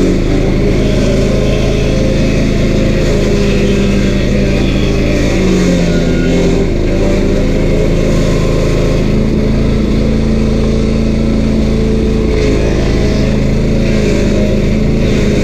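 Stump grinder's 13 HP Honda single-cylinder engine running steadily at high throttle while grinding, with the pitch shifting slightly as the load changes.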